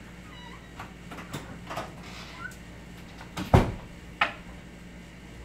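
A door shut with a thud about three and a half seconds in, with a sharp knock just after, among a few lighter clicks and knocks.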